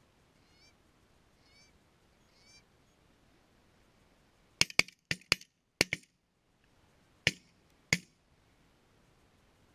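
Faint goose honks, then a volley of about eight shotgun shots over some three and a half seconds, the first six in quick pairs.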